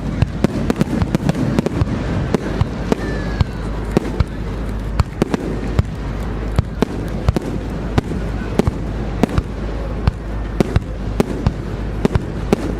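A fireworks display going off in quick succession: a continuous run of sharp bangs and pops, several a second, at irregular spacing over a low, steady background rumble.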